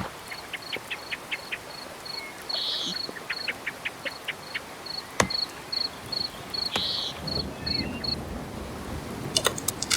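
A cricket chirping: short, high pips evenly repeated about three times a second, stopping shortly before the end, over a soft background hiss. A few sharp ticks and two brief louder chirps fall in between.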